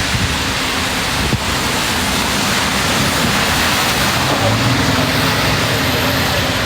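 Steady, loud hiss of heavy rain and wind on a phone's microphone.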